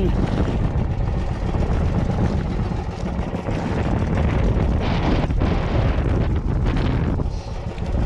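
Wind buffeting the microphone on a small boat out at sea: a steady rushing rumble with no clear engine note.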